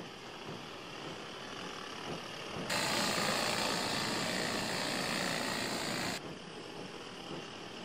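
Steady whirring hiss, louder for about three and a half seconds in the middle: a robotic hummingbird's flapping wings and drive hovering in the air, with softer hiss on either side.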